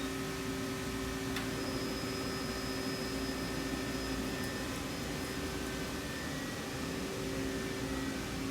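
Steady mechanical hum of an Okuma LB35 CNC lathe standing powered up, with several steady tones over a hiss. A click about a second and a half in is followed by a thin high whine that fades out a few seconds later.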